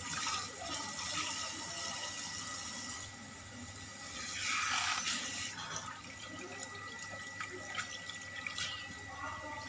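Tap water running into a kitchen sink as dishes are washed and rinsed, with a louder rush of water a little over four seconds in. A few light clicks of dishes or utensils follow near the end.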